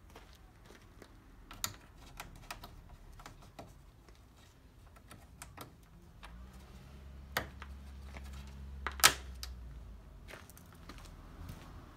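Scattered sharp plastic clicks and taps as a Suzuki Wagon R's plastic front grille is pressed into place and its clips snap in; the loudest snap comes about nine seconds in. A low hum swells and fades in the middle.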